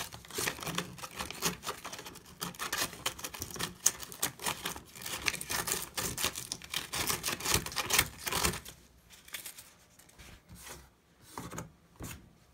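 80-grit sandpaper scrubbed in quick, irregular strokes, scuffing a smooth surface so fiberglass will stick to it. The sanding stops about eight and a half seconds in, leaving only a few lighter scrapes.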